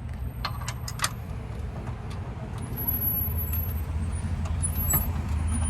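Steady low rumble of a motor vehicle engine running, with a few light metallic clicks in the first second.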